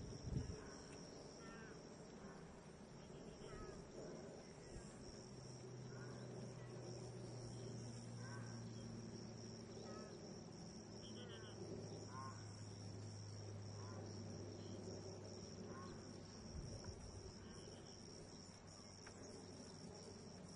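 Steady high insect buzz, with scattered short chirps every second or two. A low hum comes in about a quarter of the way through and fades before the end, and there are two soft knocks at the very start.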